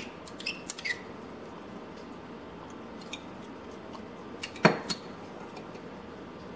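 A utensil scrapes and taps margarine out of a small dish into a stainless steel mixing bowl, with a few light metallic clinks in the first second. A little past halfway comes one sharp clack as the small dish is set down on the stone countertop.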